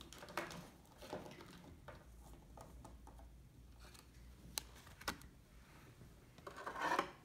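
Faint tabletop handling of nail-stamping tools: a few light clicks a little after the middle and a brief rustle near the end.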